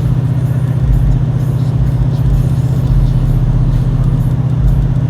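An engine running steadily with a fast, even pulse, with irregular low rumbling underneath.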